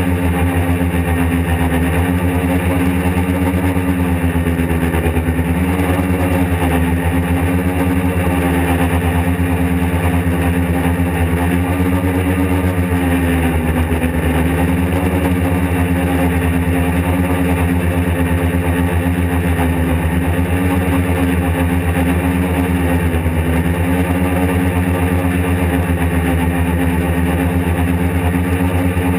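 Quadcopter's electric motors and propellers whirring, heard from a camera mounted on the craft. The pitch wavers and dips briefly a few times as the throttle is adjusted in flight.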